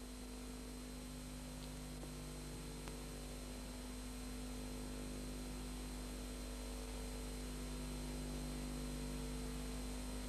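Steady electrical hum with an even hiss beneath it, and no other sound: the background noise of an old video recording's soundtrack.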